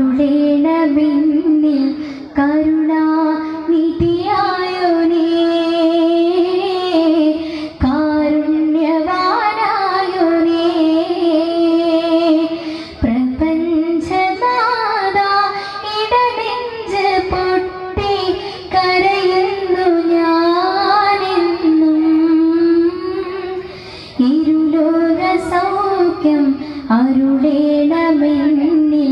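A child singing a Malayalam devotional song in long, melodic phrases, with short pauses between lines.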